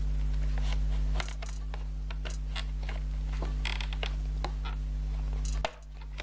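Small paint bottles clicking and knocking against each other and against a clear plastic storage box as hands rummage through them, with a brief scrape about four seconds in. A steady low electrical hum runs underneath.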